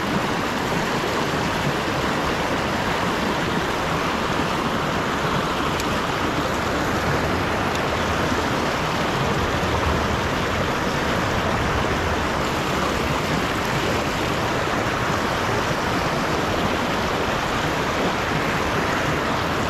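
Steady, even rushing noise, like running water or wind, holding level without a break.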